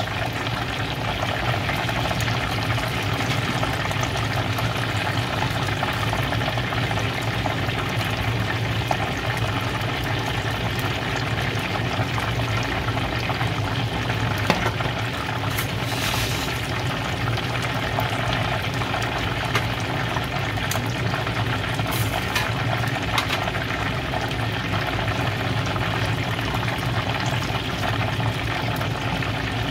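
Hot oil sizzling and bubbling steadily around a whole chicken deep-frying in a pot, with a few sharp crackles now and then.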